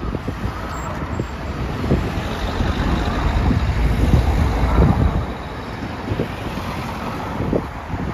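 Cars driving over a level crossing close by, a steady stream of road traffic passing with a rumble that swells about halfway through.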